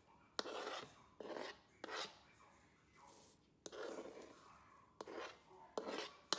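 A series of short rasping scrapes and rubs from kitchen food preparation, about one every half second to second, several with a sharp click at the start.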